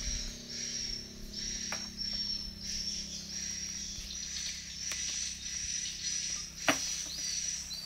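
Insects chirping in a high call repeated about once or twice a second, over a faint low steady hum. A faint knock comes about two seconds in and a louder sharp knock near the end.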